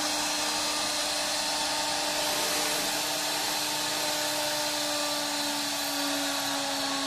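CNC router spindle running at a steady high whine with an even hiss of cutting while it machines a 2D profile. Its pitch sags slightly near the end.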